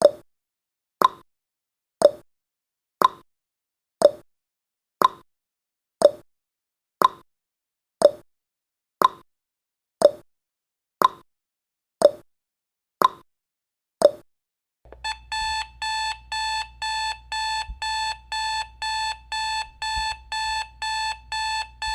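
A countdown timer's ticking sound effect, one tick a second alternating low and high like a tick-tock, for about fifteen seconds. Then, as the countdown reaches zero, the timer's alarm goes off: a rapid electronic beeping, about two beeps a second.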